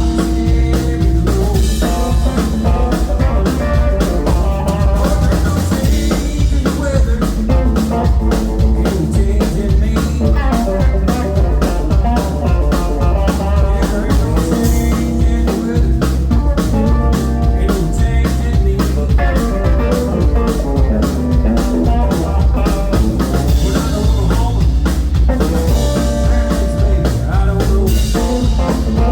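Live band playing a blues-rock tune: a drum kit with rimshots and kick drum keeps a steady beat under bass and electric guitar.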